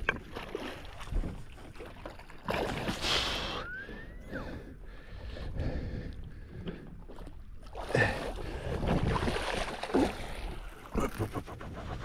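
A hooked threadfin salmon thrashing and splashing at the water's surface while being played on a rod, in surges about two and a half seconds in and again around eight to ten seconds.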